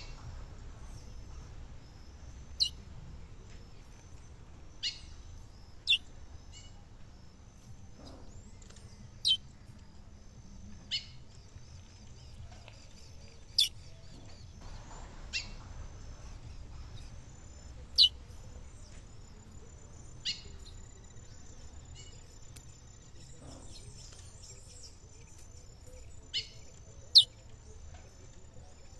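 Female chestnut-bellied seed finch (curió) giving single short, high, down-slurred call notes about a dozen times, one to four seconds apart. This call is used to excite a male curió into singing.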